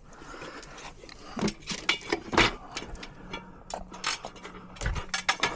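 A string of sharp knocks and clatters at irregular intervals, about half a dozen, the loudest about two and a half seconds in, over a faint steady hum.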